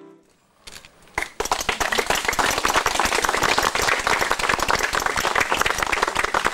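Music fades out, and after a brief hush a few scattered claps begin. About a second and a half in they build into steady applause from the gathered audience.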